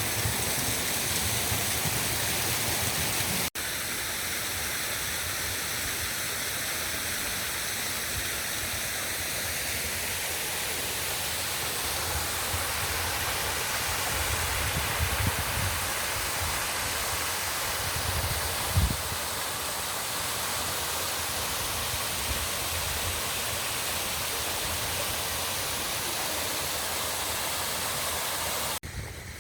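Steady rushing water, an even hiss with no pattern to it, briefly breaking off about three and a half seconds in. There are a couple of soft low thumps in the middle.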